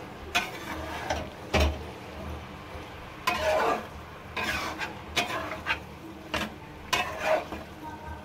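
Metal spatula scraping and knocking against a kadhai as goat tripe (ojhri) is stirred and turned while it fries. The strokes come irregularly, about one every half second to a second, over a low frying sizzle.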